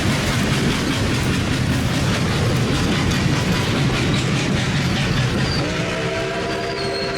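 A steam locomotive on the move, a loud steady train noise with a fast regular beat. About five and a half seconds in, its chime whistle starts, several notes sounding together as one held chord.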